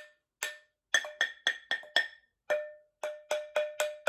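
A drum tapped in a quick, uneven series of about a dozen strikes on its different sides and parts. Each strike gives a short ringing note, higher in pitch at first and lower from a little past halfway.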